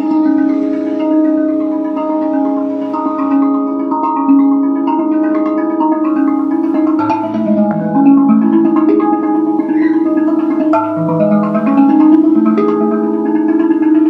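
RAV Vast steel tongue drum struck with felt-tipped mallets, playing overlapping ringing notes that sustain and blend into one another. Deeper notes join about halfway through and again near the end.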